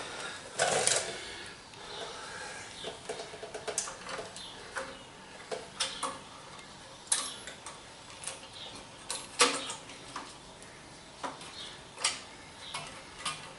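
Irregular small metal clicks and knocks, with a few quick runs of ticks, from screws and hand tools being handled while screws are fitted to a mill's DRO scale bracket.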